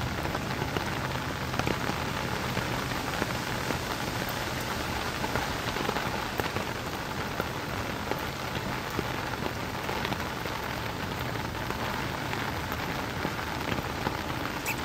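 Steady rain, a dense even hiss speckled with small drop ticks, with a faint low hum underneath.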